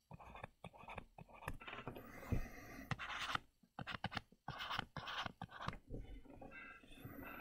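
Stylus writing by hand on a tablet screen: quiet, irregular short scratches and taps as letters and numbers are drawn.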